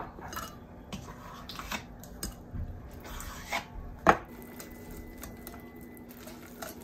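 Kitchen utensils clinking and knocking against a glass mixing bowl with a wire whisk in it as Greek yogurt is scooped in. Scattered light clicks, with one sharper knock about four seconds in.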